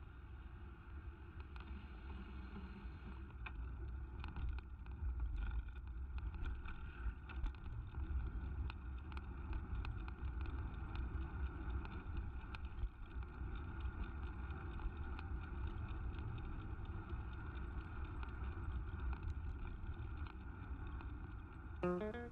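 Riding noise on a camera mounted on a moving bicycle: a steady low wind rumble with road and tyre noise, broken by frequent small knocks and rattles as the bike goes over bumps. Guitar music comes in at the very end.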